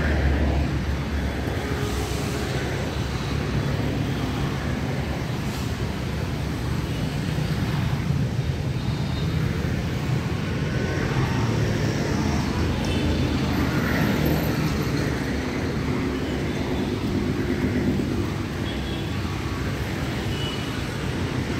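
Steady busy road traffic: passing cars, auto-rickshaws and two-wheelers, their engines and tyres making a continuous hum.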